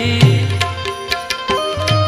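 Instrumental interlude of a Gujarati devotional song. A harmonium holds and moves between sustained notes while brass manjira hand cymbals clink in time. A hand drum beats at the start, drops out, and comes back about one and a half seconds in.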